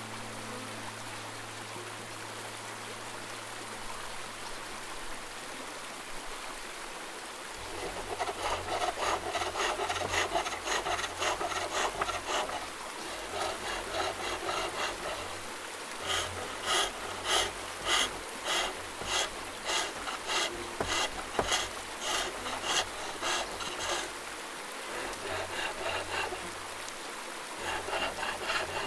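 Wood being turned by hand on a pole lathe: the blade of a turning tool cuts into the spinning wooden spindle in rasping, shaving strokes, about two a second, starting after a few seconds of steady hiss.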